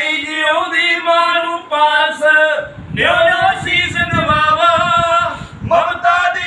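Unaccompanied male singing of a Punjabi kavishari, with long held notes and a short break about two and a half seconds in.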